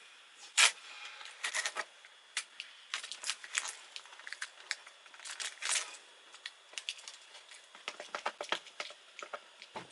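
Blue shipping tape being picked at and peeled off a sewing machine's plastic casing: scattered short crackles and ticks.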